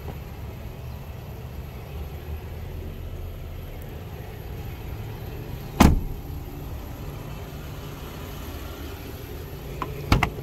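The rear door of a 2014 Jeep Wrangler Unlimited shuts once with a sharp bang about halfway through. Near the end come a few quick clicks as the front door handle is pulled and the latch releases. A low steady rumble runs underneath.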